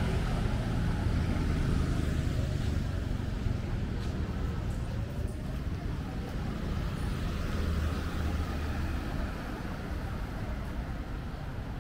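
City road traffic: a low engine rumble from passing vehicles, loudest at the start and slowly fading, with a brief swell about two-thirds of the way through.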